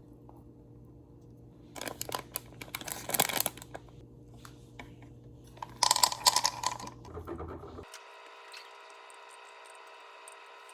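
Two bursts of close handling noise, crinkling and clicking, about two seconds in and again about six seconds in. Then it switches abruptly to a steady hum with several constant tones.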